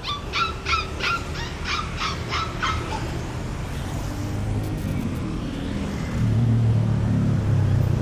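A puppy yelps rapidly, about nine short, high yelps at roughly three a second, then stops. From about six seconds in, a steady low engine hum sets in.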